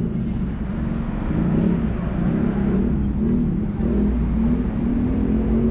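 Steady city street traffic noise, a constant low rumble of passing vehicles.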